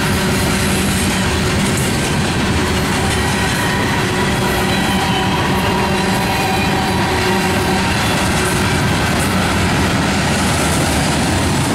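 Freight cars of a mixed train rolling steadily past on steel wheels: a loud, even rumble and rattle of wheels on rail, with faint thin ringing tones over it.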